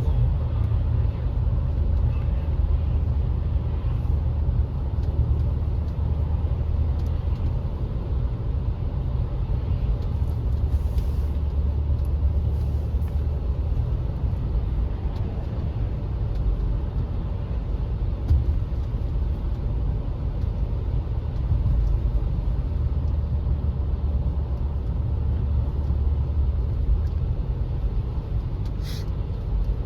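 Car driving, with a steady low rumble of engine and road noise throughout and a brief higher hiss near the end.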